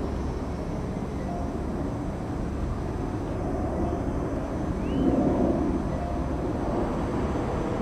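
Airbus A380 airliner passing overhead: a steady, distant low jet rumble that swells a little about five seconds in. A brief high chirp cuts in just before the swell.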